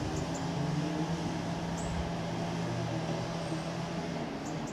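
Diesel multiple unit's underfloor diesel engines running with a steady low drone as the train pulls away, the drone dropping off about four seconds in.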